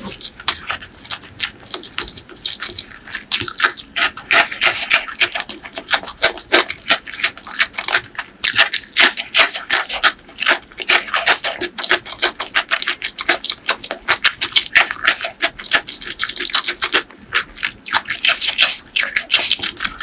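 Close-miked wet chewing and lip-smacking while eating pork leg curry and white rice: a dense, continuous run of sticky mouth clicks.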